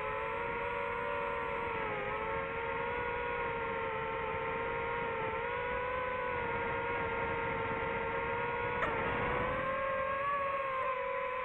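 DJI FPV drone's motors and propellers whining steadily, the pitch dipping and rising slightly as it flies. A brief click about nine seconds in, after which the whine rises a little.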